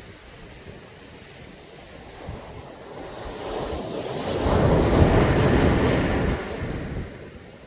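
Caribbean sea waves breaking on a beach: after a lull, one wave builds and crashes about halfway through, then the surge dies away.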